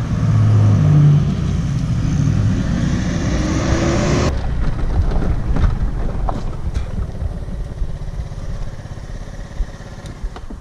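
Motor vehicle engine and road noise while driving, fairly loud for the first four seconds. It then changes abruptly to a quieter, lower rumble with a few scattered clicks.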